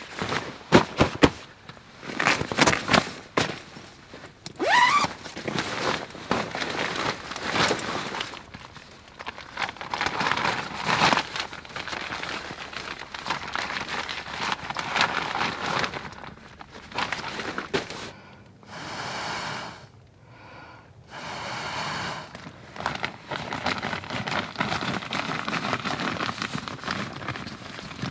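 Rustling and crinkling of a fabric bivvy bag and a synthetic sleeping mat being handled, unpacked and spread out, with scattered soft knocks and clicks. About two-thirds of the way through come two short, steady hisses.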